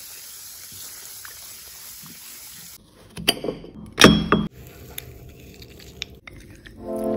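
Tap water running steadily onto strawberries in a metal bowl, stopping abruptly a little under three seconds in. A few sharp knocks and clinks follow as a yellow hand-held citrus press is handled over a ceramic cup, the loudest about four seconds in.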